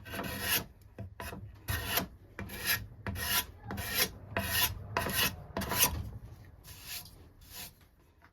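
Hand rasp cutting wood in even back-and-forth strokes, about two a second, growing fainter and stopping near the end.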